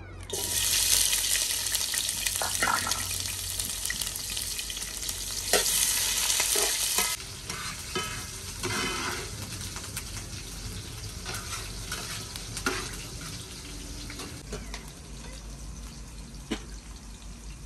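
Food frying in hot oil in a pan and being stirred. A loud sizzle starts suddenly and dies down after about seven seconds, with scattered clicks and knocks of a utensil against the pan.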